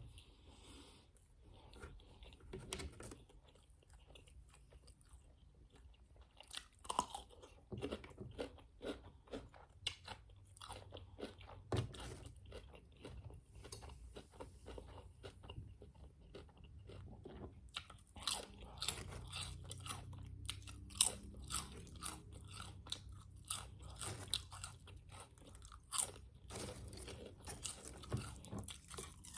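A person chewing and crunching a toasted grilled cheese turkey sandwich close to the microphone: many small crisp crunches and mouth clicks, sparser at first and denser and louder through the second half.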